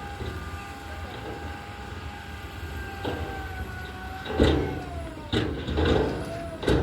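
Tipper truck engine running steadily, with a thin whine that slowly falls in pitch. Then, from a little past the middle, come a few loud, sudden bangs about a second apart.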